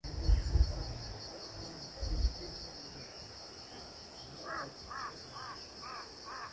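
Steady high-pitched drone of insects, with a bird giving six short repeated notes, about two a second, in the second half. A low rumble near the start and again about two seconds in.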